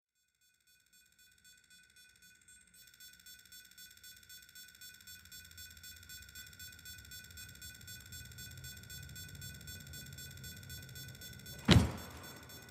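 A steady, high electronic tone pulsing about three to four times a second fades in and grows louder. Near the end a single heavy thud comes as a man jumps down from a kitchen counter onto the floor.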